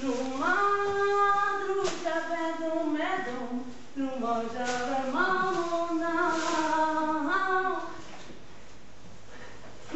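A woman singing a slow melody in long held notes that step up and down, stopping about eight seconds in.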